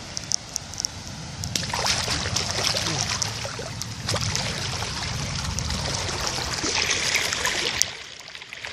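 Floodwater running and trickling after heavy rain, a steady rushing noise with scattered small clicks and splashes. It grows louder about a second and a half in and drops away just before the end.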